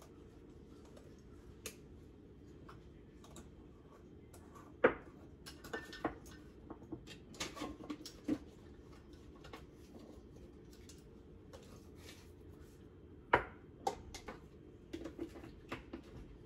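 Spice jars and a measuring spoon handled at a kitchen counter: scattered light clinks and taps, with two sharp knocks about five and about thirteen seconds in.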